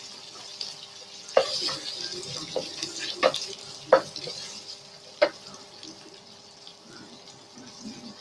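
Spatula stirring in a frying pan, with a steady sizzle as sauces and egg fry and several sharp clanks of the spatula against the pan.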